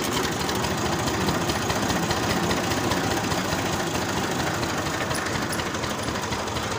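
Tractor's diesel engine running steadily with fast, even firing pulses as it pulls away slowly in first gear.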